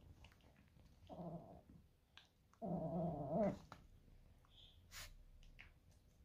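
A dog play-growling twice during rough play between a Corgi puppy and a Pomeranian: a short growl about a second in, then a longer, louder, wavering growl a moment later, with soft clicking mouthing sounds in between.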